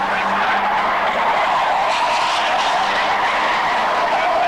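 A pack of superbanger stock cars racing on an oval track: a loud, steady din of several engines under hard throttle, its pitch dipping and rising as the cars go through the bend.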